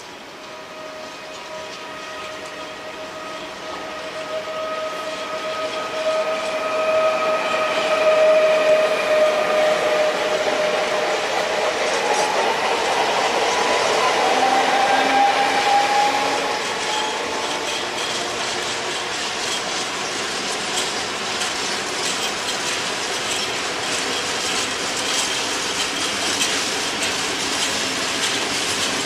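PKP ET22 electric freight locomotive passing slowly with a train of open freight wagons: a steady whine from the locomotive that drops slightly in pitch as it goes by, a rising whine a little later as it pulls away, then the wagons' wheels rumbling and clicking over the rail joints.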